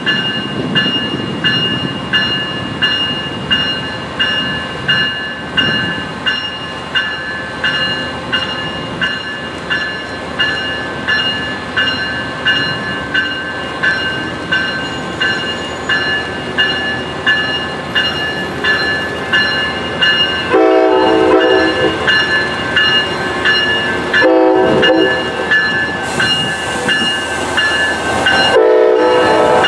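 Siemens Charger diesel locomotive pulling away with a train, its engine rumbling under a bell ringing steadily a little over once a second. About two-thirds of the way through, the locomotive horn sounds two long blasts, and a third begins near the end.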